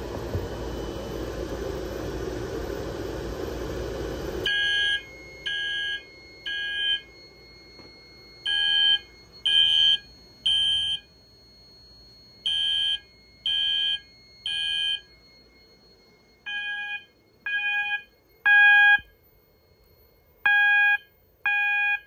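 A fog machine hisses steadily for about four seconds, then stops abruptly. Fire alarm horns then start sounding the temporal-three evacuation pattern: three half-second beeps, a pause, and the groups repeat five times. This shows the smoke detector has tripped on the fog and put the system into alarm.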